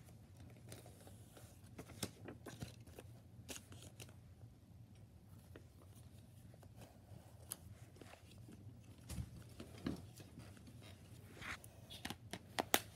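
Faint rustling of paper inserts and scattered clicks of a plastic DVD case being handled, with a quick run of sharper clicks near the end as the case is snapped shut.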